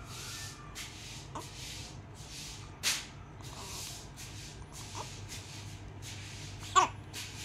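Newborn baby fussing: a run of quick breathy breaths with short squeaky whimpers, the loudest near the end. There is one sharp click about three seconds in.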